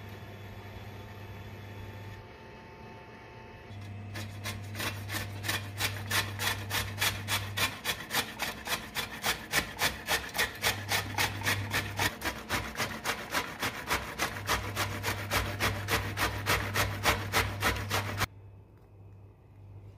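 Stainless steel box grater rasping as a soft red vegetable is rubbed up and down it in quick, even strokes, about three a second. It starts about four seconds in and stops abruptly near the end.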